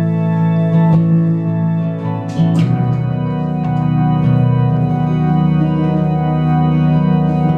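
Instrumental break of a live pop ballad: held chords over a steady low bass, moving to a new chord about two and a half seconds in, with a short splash-like hit there.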